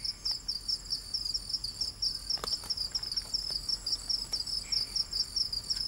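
Night-time insect chorus: cricket-like chirping that pulses evenly about five times a second, with a steady, higher trill running above it.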